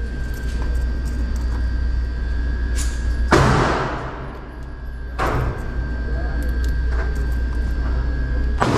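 Gunshots from other lanes of an indoor firing range: three sharp reports a couple of seconds apart, the middle one softer, each followed by a long echoing tail. Underneath runs a steady low hum, with light metallic clicks of cartridges being loaded into a revolver cylinder.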